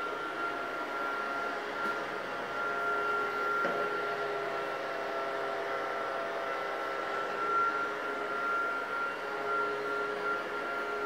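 Air hover soccer disc's small battery-powered fan running steadily: a continuous whirring hiss with a steady high whine as the disc floats over the floor.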